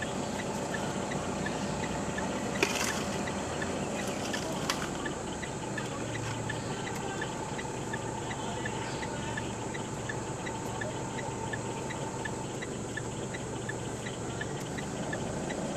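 Steady outdoor background hum with a faint insect chirping at an even beat, a couple of times a second; a single sharp click about two and a half seconds in.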